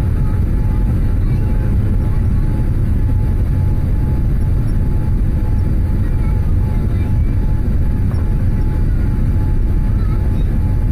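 Cabin noise of a Boeing 787-8 Dreamliner climbing after take-off: a loud, steady, deep rumble of engines and airflow, with a faint steady tone running through it.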